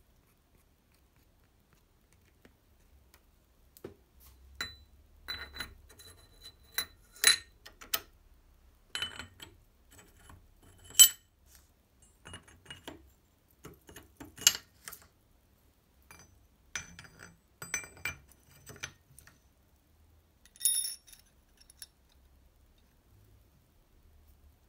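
Steel gears of a Vespa 150 VBB four-speed gearbox being handled and fitted onto the gear cluster: scattered metal clinks and clicks, the loudest about 11 seconds in, with a short ringing clink near the end.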